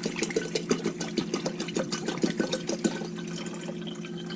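White vinegar being poured from a bottle into a coffee pot, splashing and filling it; the pour stops about three seconds in.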